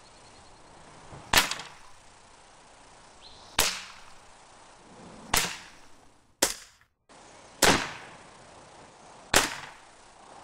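Tech Force 97 underlever spring-piston air rifle firing .177 pellets: six sharp reports about two seconds apart, each fading quickly. These are its normal shots, with no oil in the chamber.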